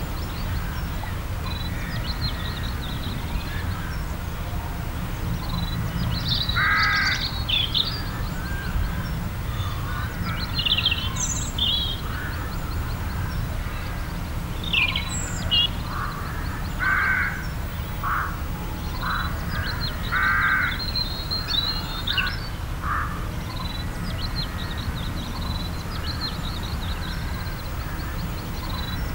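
Woodland ambience: birds calling at scattered intervals, several louder calls among fainter high chirps, over a steady low rumble.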